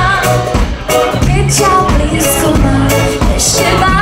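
A woman singing into a microphone over band accompaniment, her voice holding and bending long sung notes.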